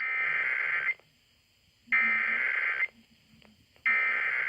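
Emergency Alert System SAME header: three bursts of warbling digital data tones, each about a second long with a second's pause between, the coded header that opens an EAS Required Monthly Test.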